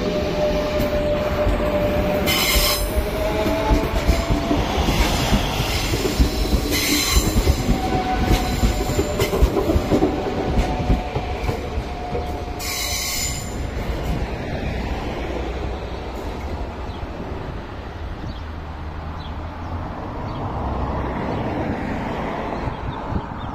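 Renfe Series 447 electric commuter train running past and away, with a rumble of wheels on the rail and an electric whine that rises in pitch in the first seconds. The wheels squeal briefly three times, and the sound then grows fainter as the train draws off.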